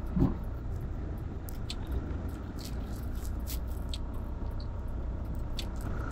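Vehicle driving along a road: a steady low engine and road rumble, with scattered light clicks and a soft thump just after the start.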